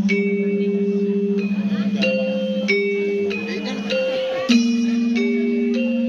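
Balinese gamelan angklung playing a slow, mournful piece: bronze metallophones struck with padded mallets. A held low note pulses with a fast shimmer under a slow melody of ringing struck notes.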